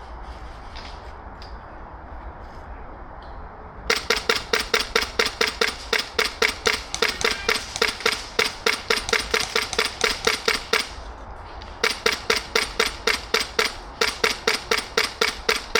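Airsoft gun firing long strings of rapid, evenly spaced shots, starting about four seconds in, with a break of about a second near eleven seconds before firing resumes.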